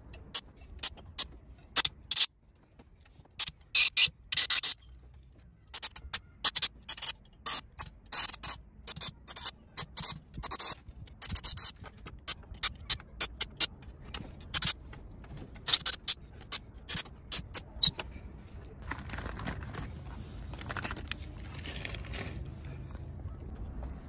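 Paper towel rubbed and scraped over the oily aluminium cylinder head of a 1.6 HDi diesel in many short, quick strokes. The strokes stop about three-quarters of the way through, and a softer, steadier rubbing follows for a few seconds.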